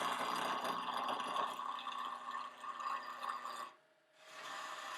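Wood lathe turning while a gouge cuts a square 1-inch blank, rounding it out: a steady, hissing cutting sound that stops briefly about four seconds in, then resumes.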